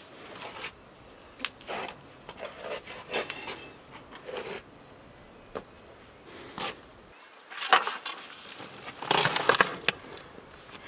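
Scattered light clicks, knocks and rustles of a whole roasted lamb being handled on a metal hook, with a denser clatter about nine seconds in.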